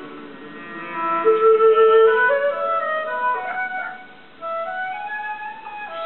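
Soft instrumental music from a television, a woodwind melody of held notes moving up and down, dipping quieter for a moment past the middle.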